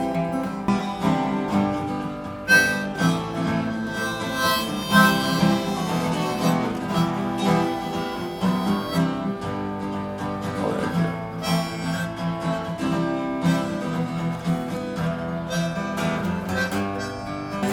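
Acoustic guitar strumming, with a harmonica playing a melody over it in an instrumental passage.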